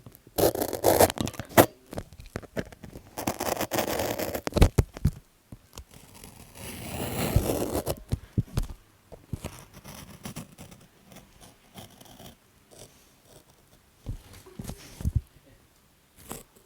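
Close-up journaling sounds: paper and stickers being handled, peeled and scratched, in irregular scratchy and tearing bursts with small clicks. The sounds are busier in the first half, with a longer scratchy stretch about seven seconds in, and turn to quieter scattered scratches and taps later.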